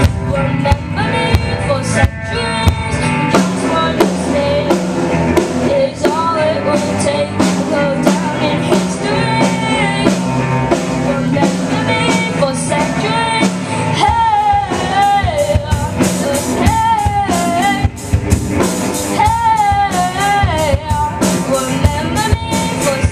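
Youth rock band playing live: drum kit, electric guitars and bass, with a sung vocal line over them. The voice is most prominent in the second half.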